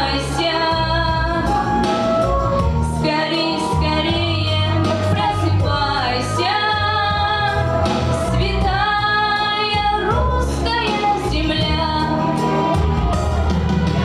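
A woman singing a song with instrumental accompaniment, holding long notes over a steady low bass line.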